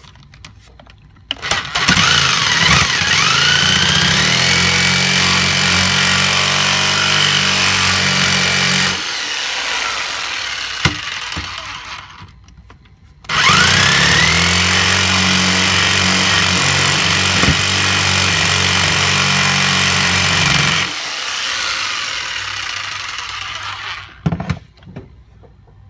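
Electric jigsaw cutting through the metal outer sleeve of an old suspension bushing pressed into a cast control arm. It runs in two long spells, each starting with a rising whine as the motor spins up, then running steadily before easing off and stopping.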